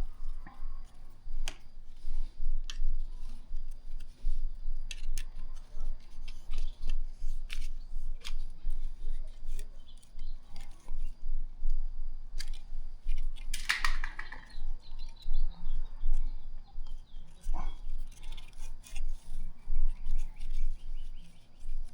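A hand tool turning the screws of the hose clamps that hold a heat shield on a motorcycle exhaust header: a quick, uneven run of small metal clicks and scrapes, with a few sharper clicks among them.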